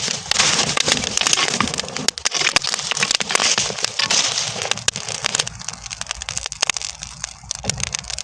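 Burning straw crackling and hissing in a dense run of fast pops, thinning to sparser, quieter crackles about five seconds in.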